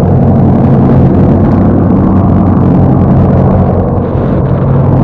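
Boat engine running steadily, loud and close, with a low hum.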